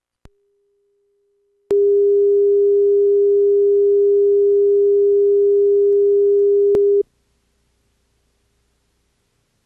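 Steady electronic test tone: one unchanging pitch with faint overtones, held loud for about five seconds and cutting off suddenly. A click and a faint version of the same tone come just before it.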